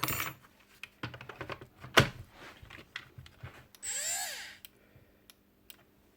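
The small brushed motor of a Makita DBN600 cordless nail gun spins up about four seconds in and winds down again in under a second, its whine rising and then falling. This is the gun's fault: the motor starts and then cuts out, a problem the repairer takes for an electrical one, involving the sensor or a switch. Before it come clicks and knocks of parts being handled, the loudest about two seconds in.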